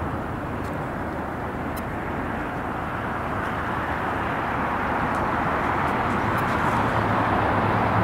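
Jet airliner engine noise, a steady rush that grows louder over the last few seconds.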